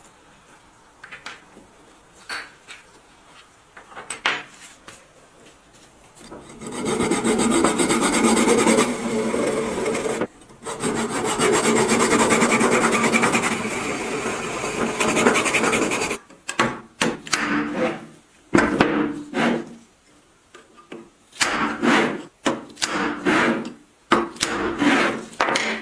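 Abrasive scraping on the rusty metal of an old grain grinder being cleaned: a few scattered clicks, then a long stretch of continuous scraping broken once by a short pause about ten seconds in, then a series of short separate strokes.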